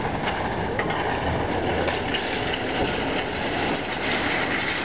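Steady mechanical rumble and rattle with a few faint clicks.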